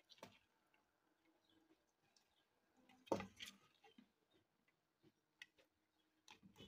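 Near silence: faint room tone with a few light ticks and one short, louder noise about three seconds in.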